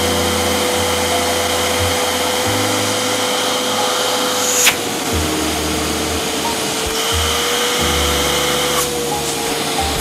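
Nilfisk Buddy II 12L wet/dry vacuum cleaner running steadily with a high whine, its hose inlet sealed by a hand so the motor works against blocked suction and draws less power. A sharp click about halfway through, after which the whine drops slightly in pitch and comes back up near the end.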